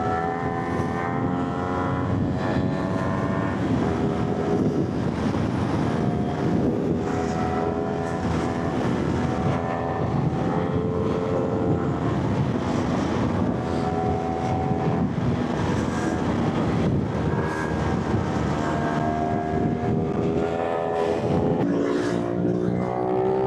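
Motorcycle engine running on the move, its pitch rising and falling with the throttle over a steady rush of wind and road noise.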